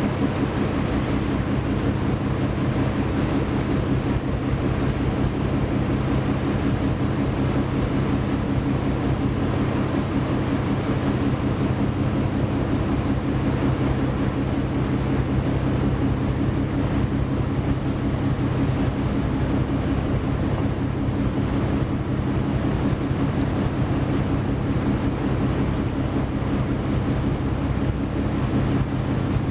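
The car ferry Sanyo's engine running steadily: a low, even drone whose pitch does not change.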